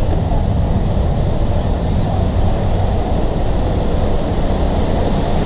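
Steady rushing of a waterfall, heard from inside a rock tunnel that opens onto the falls.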